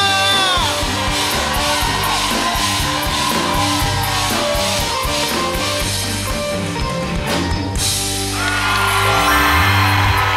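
Live band music with drums and guitar backing a sung Isan song. A long held vocal note ends in the first second, the band plays on, and another long held note starts near the end.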